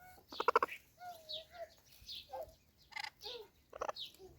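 Parrots calling back and forth: a string of short chirps, whistles and squawks, the loudest a harsh call about half a second in.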